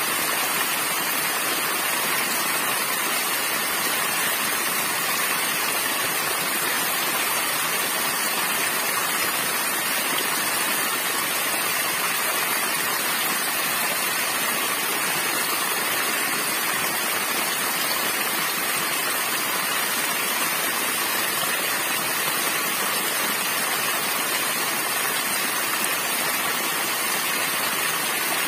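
Small waterfall splashing steadily onto rock and into a shallow pool: a constant, even rush of falling and churning water.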